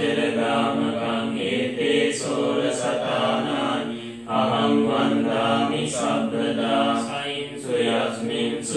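A Buddhist monk chanting Pali devotional verses in a steady, intoned recitation of long held phrases, with a short break about four seconds in.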